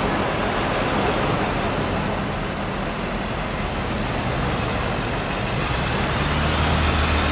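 Engine of a Ford-chassis fire department utility truck running as it rolls slowly past, its low hum growing louder near the end, over steady city traffic noise.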